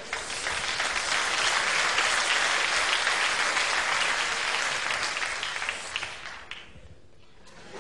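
Theatre audience applauding, a dense steady clapping that dies away about six and a half seconds in.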